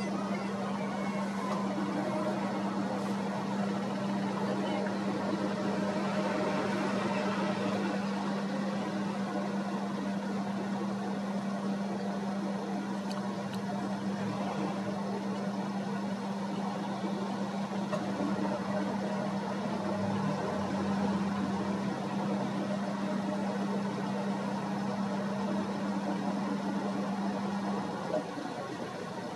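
A boat engine running at a steady pitch over the noise of wind and water, dropping away about a second before the end.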